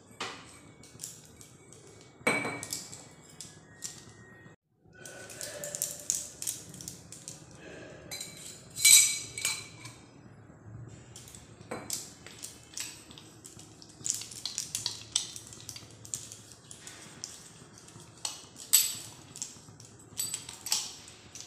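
Stainless-steel sevai (sev) maker hand press being handled and greased: its barrel, perforated disc and screw-plunger parts clink and clatter against each other in irregular metallic knocks, a few louder clanks among them, the loudest about nine seconds in.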